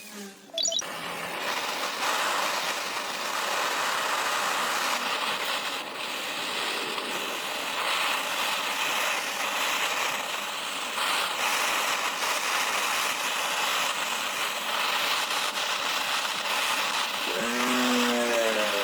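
A woodworking power tool running, a steady even noise, with a short pitched sound that bends up and down near the end.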